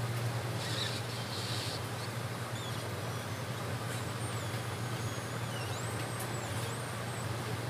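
Hot-air rework station blowing steadily, a low hum with a hiss of air, as its nozzle heats the inductor coil on a smartphone board to desolder it.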